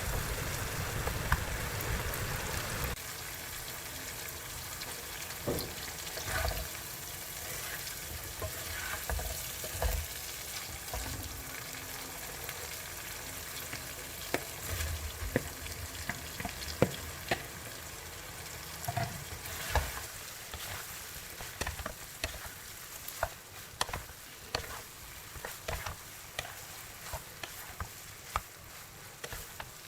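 Food sizzling in hot oil in a pan while a spatula stirs it, with the spatula scraping and tapping against the pan. The sizzle drops a little about three seconds in, and the taps come more often in the second half.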